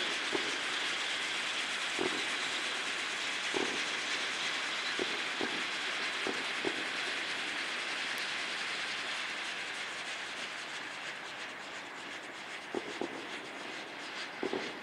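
A fireworks cake spraying a fountain of sparks: a steady hiss with a few scattered pops, slowly dying down over the last few seconds.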